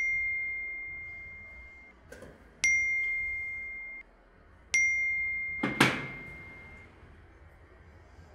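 Text-message notification chime, a single bright ping that rings and fades, sounding three times about two seconds apart as messages arrive. About a second after the last chime comes a brief sharp clatter, the loudest sound.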